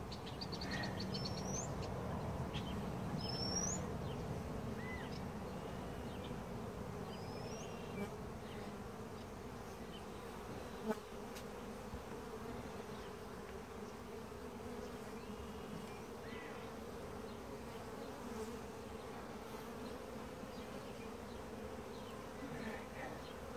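Honeybees buzzing around an open hive, a steady dense hum. A few faint high chirps sound in the first several seconds, and a single sharp tap comes about eleven seconds in.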